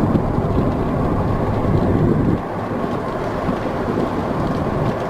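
Motorhome driving along a highway: steady engine and road rumble heard from inside the cab, easing slightly about halfway through.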